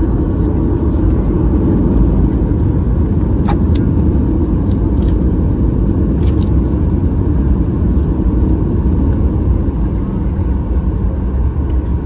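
Inside the cabin of a Boeing 737-800 taxiing, a steady low rumble from the CFM56 engines at taxi power and the wheels rolling on the pavement, with a few light clicks.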